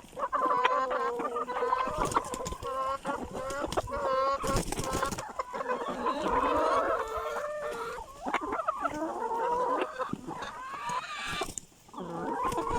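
A flock of chickens clucking continuously, with many short overlapping calls, as they feed on zucchini. There is a short burst of noise about four and a half seconds in.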